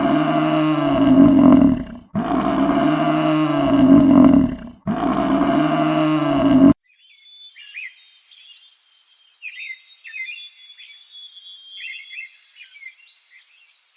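A large animal's loud bellowing call, heard three times in a row, each about two seconds long and rising then falling in pitch. About halfway through it cuts off abruptly and gives way to faint, high bird chirping.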